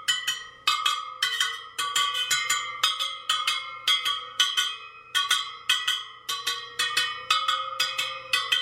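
Spokes of a Sur Ron Light Bee supermoto front wheel being plucked one after another, about three pings a second, each a short ringing metallic note of similar pitch. This is a spoke-tension check by ear: a spoke that sounds dead is loose and needs tightening.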